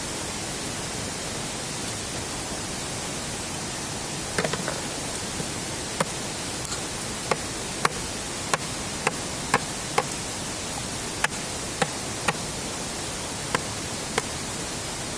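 Machete chopping into a thick bamboo stem to cut out a bamboo water vessel: a series of sharp, irregular strikes beginning about four seconds in, over a steady hiss.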